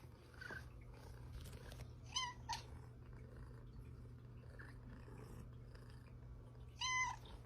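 Domestic cat giving short meows: two quick chirp-like calls about two seconds in and a louder one near the end, over a faint steady low hum.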